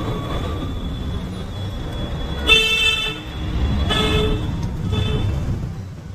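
Vehicle horns honking over the low rumble of road traffic: one long, loud honk about two and a half seconds in, then two shorter honks about a second apart.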